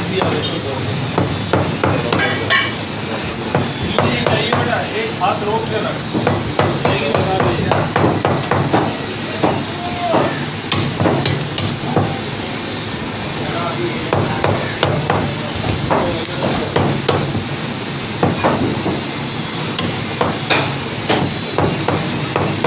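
Meat cleaver chopping mutton on a round wooden chopping block: a steady run of sharp chops, a few each second, the blade striking through meat into the wood.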